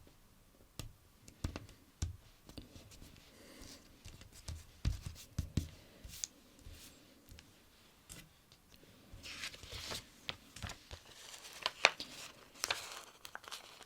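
Stickers being peeled from their backing sheet and pressed and smoothed onto a paper sticker-book page: scattered sharp little clicks and soft taps, then denser peeling and rubbing rustles in the last few seconds.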